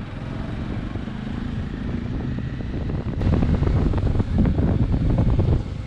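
Bajaj Dominar 400's single-cylinder engine running while the motorcycle is ridden, with wind noise on the microphone. It grows louder about three seconds in as the bike picks up speed.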